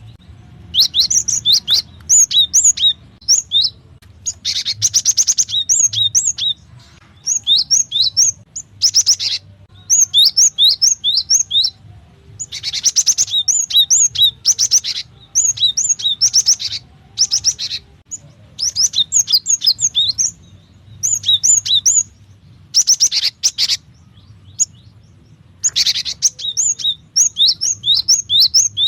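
Cinereous tit (gelatik batu) calling in repeated bursts of rapid, sharp chirping notes, some bursts with a harsh buzzy rasp, pausing between bursts. A faint low hum lies underneath.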